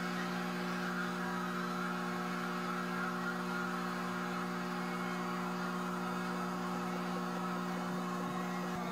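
Steady electrical hum with a hiss underneath, from old videotape footage played back on a TV: several constant low tones that do not change, and no voices.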